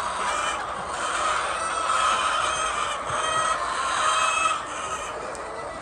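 A flock of chickens clucking and calling together, many birds overlapping, quieting somewhat about four and a half seconds in.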